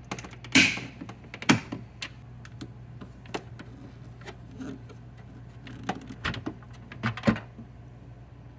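Irregular hard plastic clicks and knocks as the filter lock tab of an AquaTru Carafe water purifier is lifted and the stage 4 VOC carbon filter cartridge is levered out with its plastic removal tool. The loudest knock comes about half a second in, and another cluster comes around seven seconds, over a faint low hum.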